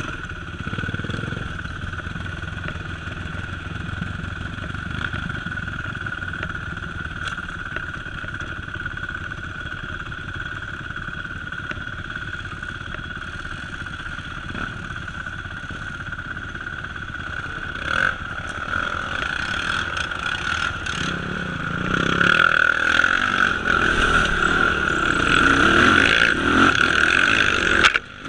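ATV engine running on a trail ride, getting louder about three quarters of the way through.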